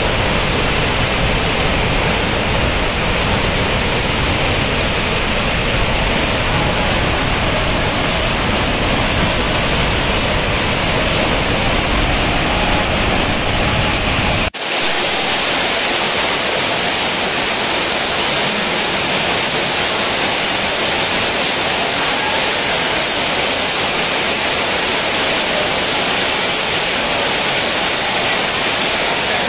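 Muddy floodwater pouring off a rock cliff as a temporary waterfall: a loud, steady, deep rush. About halfway through it cuts abruptly to a thinner, hissier rush of heavy rain and water streaming off rock.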